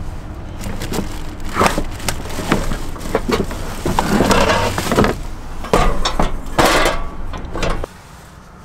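Rummaging through a wooden storage drawer: plastic bags and packages rustling, and items knocking and clattering against the wood, over a steady low hum that cuts off near the end.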